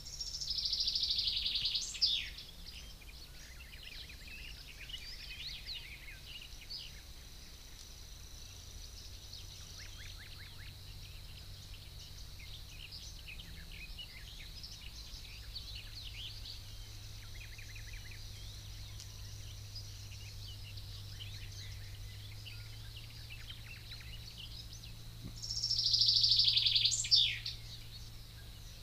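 Songbirds singing: a loud song phrase about two seconds long, falling in pitch and ending on a sharp note, comes twice, at the start and again near the end, over a background of fainter chirps from other birds. A faint steady low hum runs underneath.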